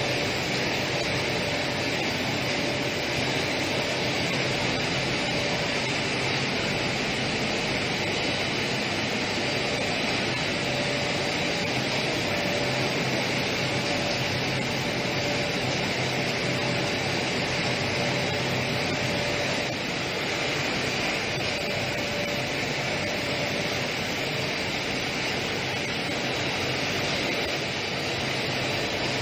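Ultrasonic vial washing machine running steadily: an even mechanical hum and hiss, with a faint higher tone that fades in and out.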